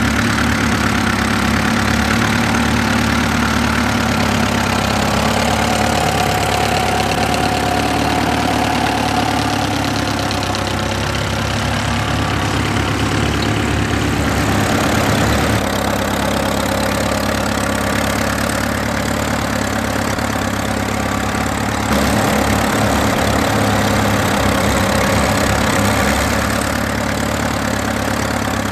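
Vintage tractor engine running steadily as the tractor pulls a trailed cultivator through the soil, growing a little louder for a few seconds towards the end.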